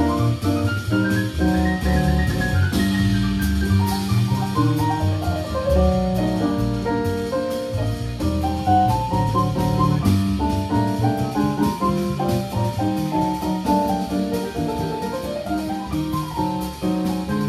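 Live small-group jazz: a stage piano plays a busy melodic line over a drum kit keeping time with steady cymbal strokes.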